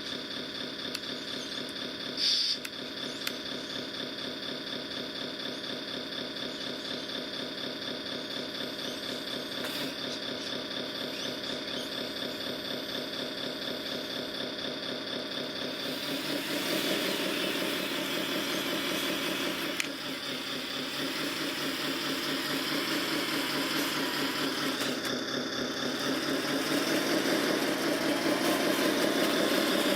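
Radio-controlled construction vehicle running with a steady engine sound that has a thin high whine over it. About halfway through it grows louder and busier, then keeps building towards the end.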